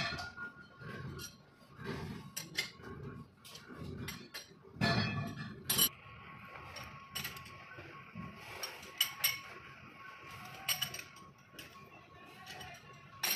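Steel chuck key clinking and knocking against the jaws of a large four-jaw lathe chuck as it is fitted into the jaw screws and turned to adjust and tighten the jaws, in irregular sharp metallic clinks with a heavier knock about five seconds in. A faint steady hum runs underneath.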